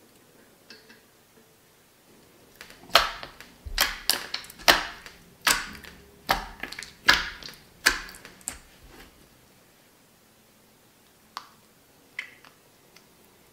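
Clear slime pressed and squeezed by hand, giving a quick run of about a dozen sharp clicking pops from about three seconds in, then a pause and a few single pops near the end.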